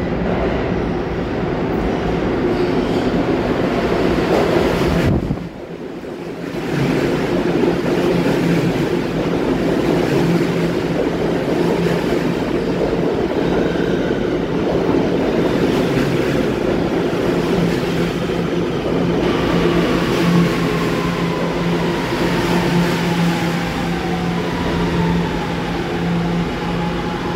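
New York City subway trains running. A train is heard on the far track, then after a short break another runs close alongside the platform with a steady hum and wheel and track noise. From about two-thirds of the way in, a falling motor whine shows it slowing.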